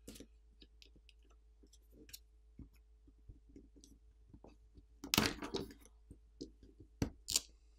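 Faint, scattered small clicks and scrapes of a plastic pry tool and the plastic smartphone speaker assembly as the assembly is pried up from the phone's frame and lifted out. A louder cluster of clicks comes about five seconds in, and a shorter one about seven seconds in.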